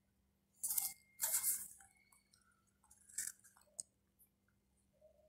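Faint crunching, rustling handling noises: two short ones about a second in, then two small clicks a little after three seconds.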